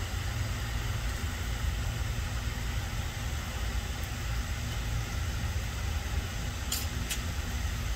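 Wind on the phone's microphone: a steady low rumble with hiss over it, and two faint clicks near the end.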